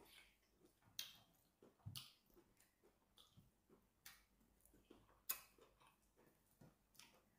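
Faint wet mouth sounds of eating plantain fufu with peanut soup by hand: scattered lip smacks and clicks of chewing and finger-licking, about one a second, the sharpest a little after five seconds in.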